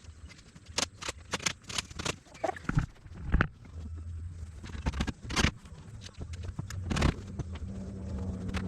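Metal parts of a bolt-together chicken coop being handled during assembly: irregular sharp knocks and clanks, with a low hum underneath at times.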